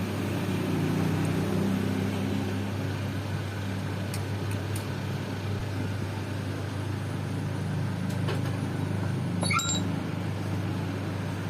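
A workshop machine's motor runs with a steady hum, with a couple of light metal ticks about four seconds in. There is a short squeal of metal on metal about nine and a half seconds in.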